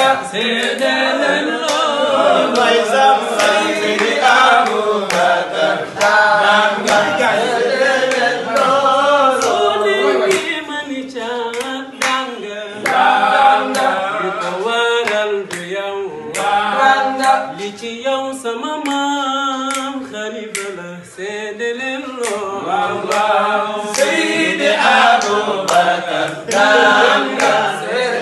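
Unaccompanied singing by men: a chanted melody carried by several voices, with sharp claps scattered throughout.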